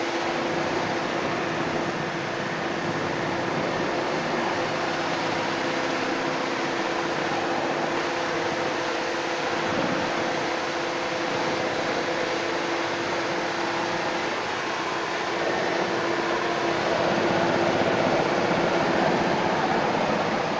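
High-pressure water spraying from the spinning nozzles of a rotating underbody car-wash head against the car's underside and the tiled floor: a steady hiss over a steady motor hum. It gets a little louder about three-quarters of the way through.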